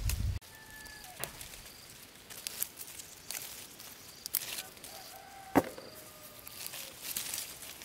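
Leaves rustling and stems snapping as small green fruit is plucked by hand from a tree's branches. There are several sharp snaps, the loudest a little past halfway.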